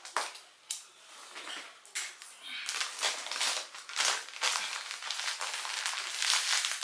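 Plastic bag crinkling as hands work it open, first in scattered sharp rustles and clicks, then in dense, continuous crinkling from about three seconds in.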